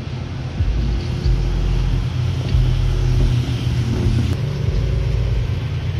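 Road traffic passing: motorcycles and a car driving by, their engines making a steady low rumble.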